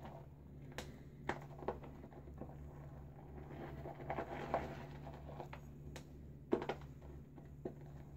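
Boar-bristle shaving brush being worked round a bowl, whipping up a dense lather from Williams mug soap: soft, wet swishing broken by scattered light clicks.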